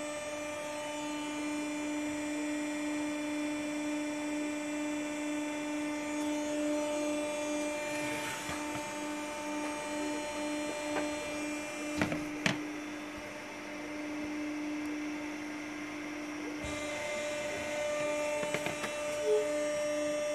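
Roller machine running: a steady hum that pulses in a regular beat at times, with two sharp clicks about twelve seconds in.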